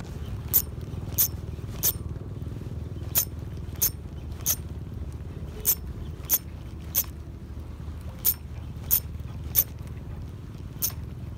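Fishing reel cranked in a stop-and-go retrieve of a soft lure: sharp ticks in sets of three about two-thirds of a second apart, with a short pause between sets, over a steady low rumble of wind.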